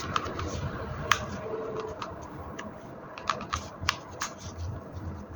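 Irregular sharp clicks and clacks of a WE M&P gas blowback airsoft pistol being handled, about a dozen over several seconds, the loudest about a second in.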